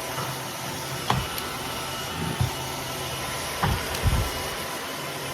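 Cordless wet-dry floor cleaner running steadily as it is pushed across a hard floor, with a few brief low knocks.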